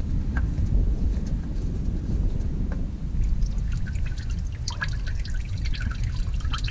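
Warm engine oil pouring out of the 6.0-litre Vortec V8's oil pan through the open drain hole, the stream pattering and splattering as it lands, busier from about three seconds in, over a steady low rumble.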